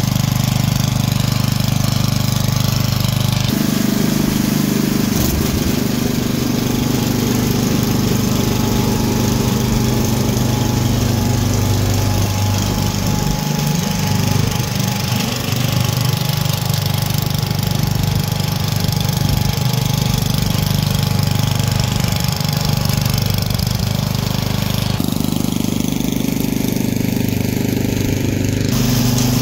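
A two-stage snowblower's small engine runs steadily while clearing snow. Its note shifts in steps a few times.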